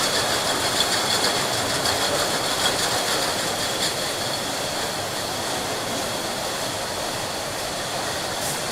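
Glass bottle factory line: glass bottles clinking and rattling against each other on a conveyor over the steady rumble of machinery, with a steady high whine. The clinking is busier in the first half and eases off somewhat after about four seconds.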